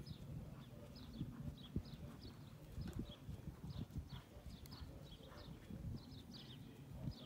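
Hoofbeats of a ridden horse moving over a sand arena surface: an irregular run of soft low thuds.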